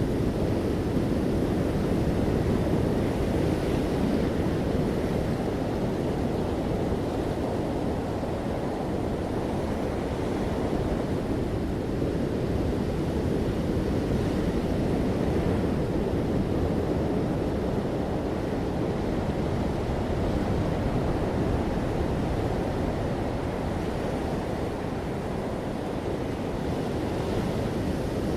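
Ocean waves washing onto a shore, a steady rushing surf that swells and eases slowly, with some wind noise on the microphone.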